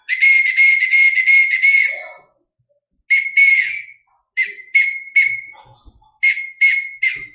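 A whistle sending Morse code. One long blast of about two seconds comes first. Then come a short and a long blast (A), three short blasts (S), and a run of further short blasts (the dits of H), spelling the start of the word "ashes".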